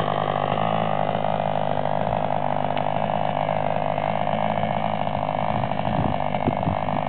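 Old plain-bearing OS 60 glow engine in a model aircraft running steadily, a continuous high-pitched drone.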